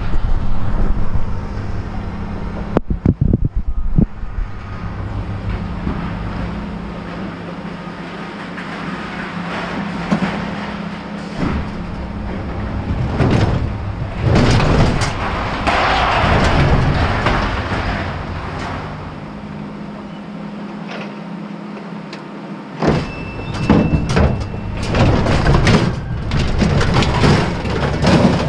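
A vehicle engine idling with a steady low hum, with sharp knocks about three seconds in. Loud bursts of clattering, scraping noise come around the middle and again near the end.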